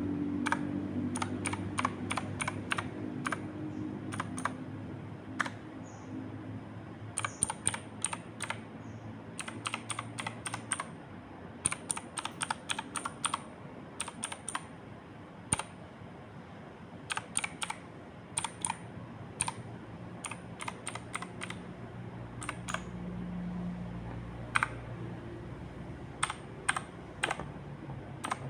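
Typing on a mechanical keyboard with Outemu Blue clicky switches: sharp key clicks in irregular runs of several keystrokes, broken by short pauses.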